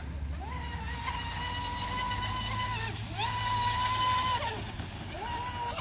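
Radio-controlled model boat's motor running at speed in throttle bursts: a high whine that rises as the throttle opens, holds steady, then drops off. This happens three times: a long run, a shorter one, and a brief one near the end.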